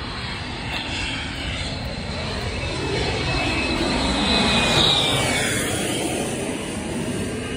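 An engine passing by: it swells to a peak about five seconds in and then fades, with a high whine that drops slightly in pitch as it goes past.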